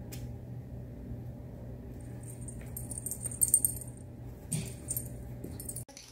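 Metal tags on a dog's collar jingling in short clusters through the middle as a ferret tugs and nips at the collar, over a steady low hum.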